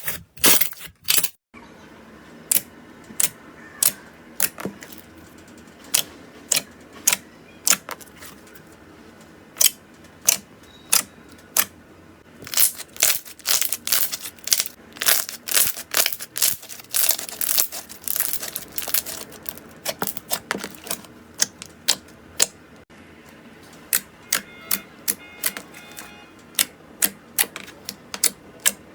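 Crunchy slime being pressed and worked by hand, giving sharp, irregular crackling clicks and pops that come thickest midway through.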